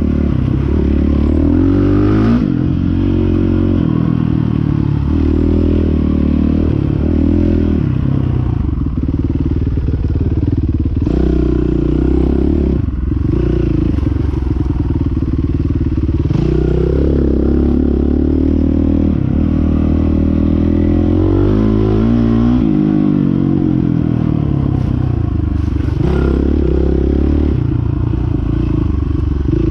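Dirt bike engine running hard while the bike is ridden over a rough trail. Its pitch rises and falls with the throttle, with several brief drops in revs that pick back up.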